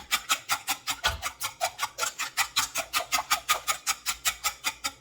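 Eggs, milk and oil being beaten by hand in a mixing bowl, the utensil clinking against the bowl in a fast, steady rhythm of about six or seven strokes a second.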